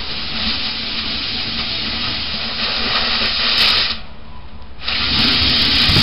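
Oxy-fuel cutting torch hissing steadily as its jet burns through the steel wall of a propane tank. The hiss drops away for about a second near the four-second mark, then starts again.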